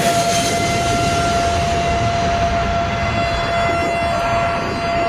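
Jet aircraft engines running at high power: a steady rush with a constant high whine throughout.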